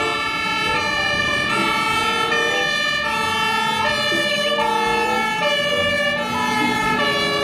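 Electronic fire-engine siren sounding continuously, stepping back and forth between pitches about every three-quarters of a second.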